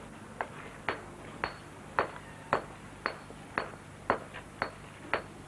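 Hand hammer striking a stone block, dressing or splitting the stone: sharp ringing clinks at a steady pace of about two blows a second.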